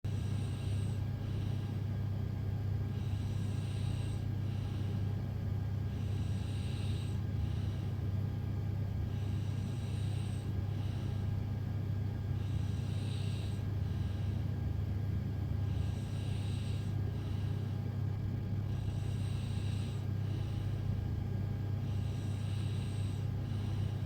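A sleeping woman breathing slowly and audibly, a soft hiss in and out about once every three seconds, over a steady low hum.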